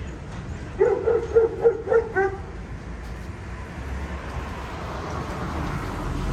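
A dog barking: a quick run of about six short, high yaps over a second and a half, about a second in.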